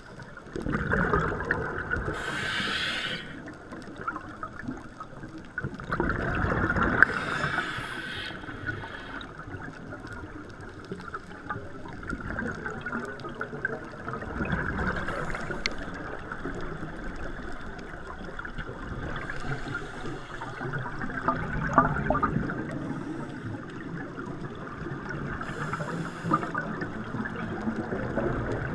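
Scuba regulator breathing heard underwater: a hiss on each inhale and a bubbling gurgle of exhaled air, a breath about every five to six seconds over a steady underwater hiss.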